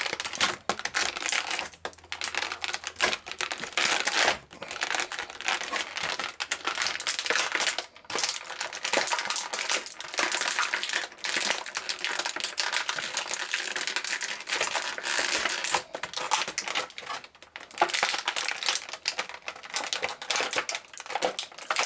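Clear plastic toy packaging crinkling and crackling as it is squeezed and pulled apart to free the figure's parts. It goes in irregular bursts of crackles and clicks with brief pauses.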